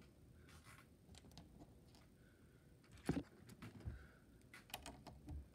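Faint, scattered clicks and taps of LEGO bricks being handled and pressed into place, with the sharpest click about three seconds in.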